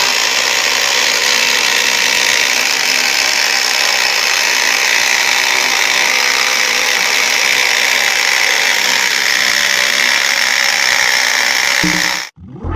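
Homemade electric jigsaw running steadily and sawing wood, a constant high motor whine over the cutting noise, cut off suddenly near the end.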